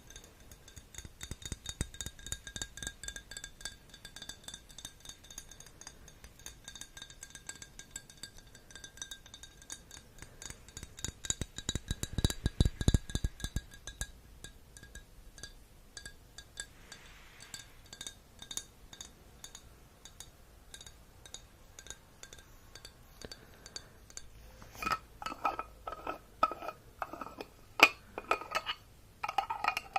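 Many quick, light taps and clinks on hard objects, ringing with clear steady tones through the first half. Louder clinks with ringing return near the end.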